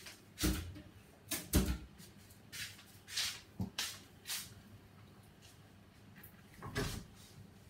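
Kitchen items being handled and knocked about: several separate knocks and bumps, the loudest about a second and a half in and another near the end, with soft rustling between them.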